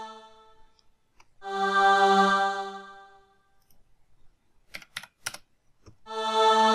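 Sampled choir voices from a SoundFont 'Octave Choir' patch, played from a MIDI keyboard: two held choir notes, each lasting about a second and a half and fading away, with the first coming just over a second in and the second near the end. A few quick computer-keyboard taps sound between them as the envelope decay value is retyped.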